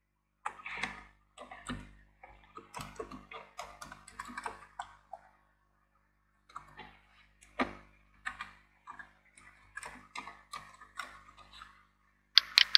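Typing on a computer keyboard: irregular runs of short key clicks with a pause about halfway through, then a couple of louder clicks near the end.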